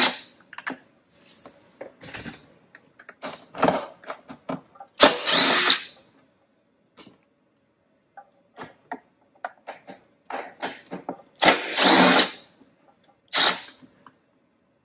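Cordless driver spinning in short runs, about four, each under a second, as it backs screws out of a backpack blower's outer engine cover. Small clicks and rattles of handled screws and plastic fall between the runs.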